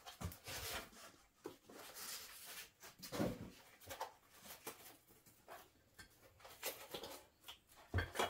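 Hands rummaging in a cardboard shipping box: packing foam and cardboard rustling and scraping, with a few light knocks, the sharpest about eight seconds in.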